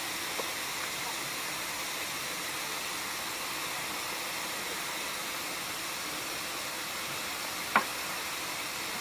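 Steady hiss of water jetting from a dam's outlet valves in two cone-shaped sprays. A single short knock sounds near the end.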